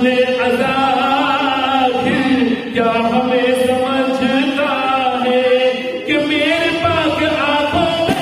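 A man's solo voice chanting an Urdu manqabat, a devotional poem in praise, into a microphone, in long held notes that bend and waver in pitch.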